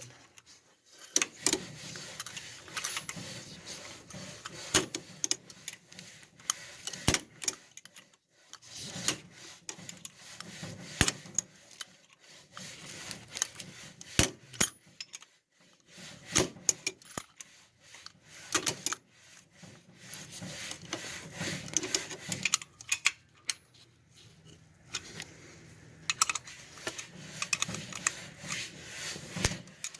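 Hand-sharpening of a steel shovel blade: irregular metal scraping strokes mixed with sharp clinks and knocks, with short pauses between strokes.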